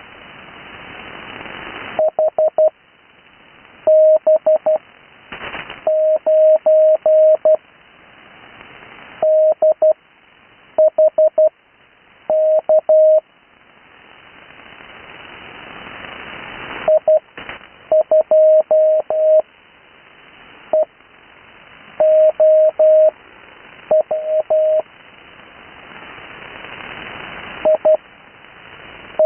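Amateur radio Morse code (CW) on the 80 m band: a steady beep keyed into dots and dashes at about 12 words a minute, with long gaps between characters (Farnsworth spacing). Band hiss swells in each gap and drops away as the next character starts.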